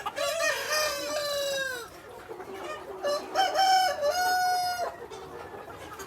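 Rooster crowing twice, each crow lasting about two seconds; the first slides down in pitch at its end.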